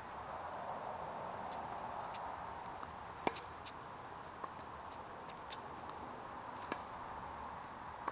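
Tennis ball struck by rackets and bouncing on a hard court: a scattered series of sharp pops, the loudest about three seconds in.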